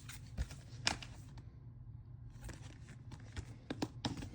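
Handling of a plastic Blu-ray case: a few sharp clicks with light rustling between them, and a quick run of clicks near the end as the case is worked open.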